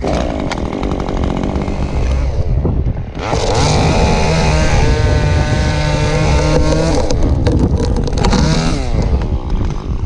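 Stihl chainsaw running, revved to full throttle about three seconds in and held there for about four seconds as it cuts through a pecan limb, then dropping back toward idle near the end.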